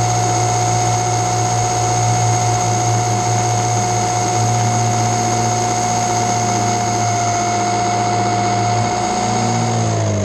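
Multirotor drone's electric motors and propellers whining at a steady pitch, picked up by the drone's own onboard camera. Near the end, as the drone settles in the grass, the pitch starts to fall while the motors spin down.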